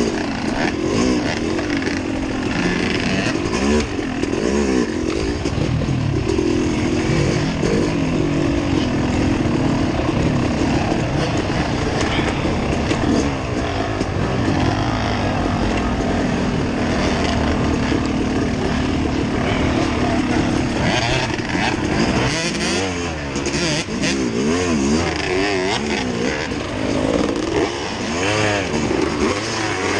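Small off-road vehicle engine running continuously, its revs rising and falling again and again, with the swings growing faster and wider in the last third.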